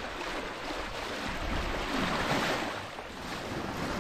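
Water rushing and splashing along a sailboat's bow as it cuts through the sea under sail, with wind buffeting the microphone; the rush swells briefly about two seconds in.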